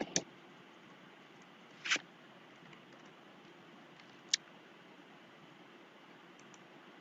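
A few isolated computer mouse clicks over a faint steady hiss.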